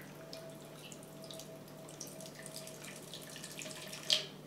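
Beer poured in a thin stream from a can into a pot: faint trickling with scattered small ticks, and one sharp click about four seconds in.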